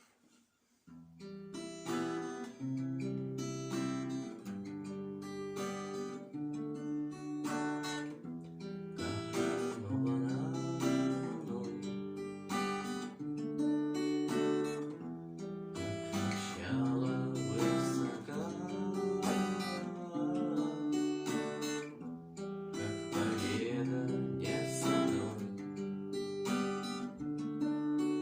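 Acoustic guitar playing a run of strummed chords, starting about a second in.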